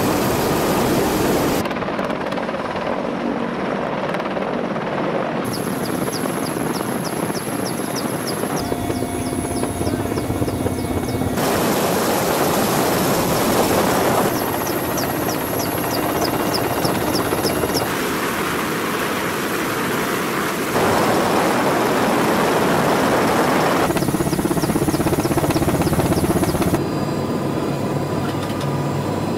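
Mil Mi-26 heavy helicopter running: steady, loud rotor and twin-turboshaft noise, with a thin high whine in parts, changing abruptly several times between closer and more distant perspectives.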